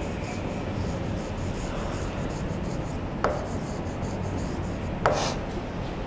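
Stylus rubbing across the screen of an interactive whiteboard as a word is handwritten, over a low steady hum. Two sharp taps of the pen on the screen come about three and five seconds in, the second louder.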